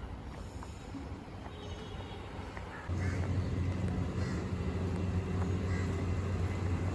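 Outdoor ambience with a low rumble, then a steady low engine hum that starts about three seconds in and runs until a sudden cut.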